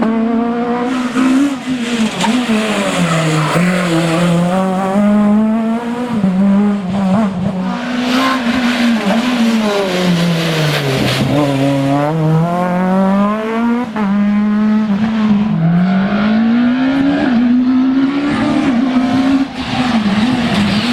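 Renault Mégane Maxi kit car's engine running hard at rally pace, its note repeatedly climbing through the revs and dropping back with gear changes and braking, with the deepest drop and climb back about halfway through.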